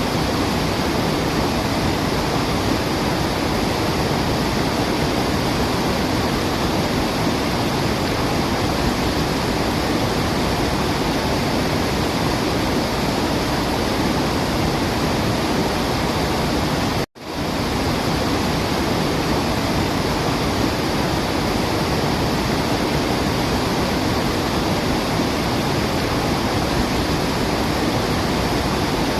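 Steady, even rush of a waterfall, with no birdsong heard. About two-thirds of the way through, it cuts out to silence for a split second, then fades back in.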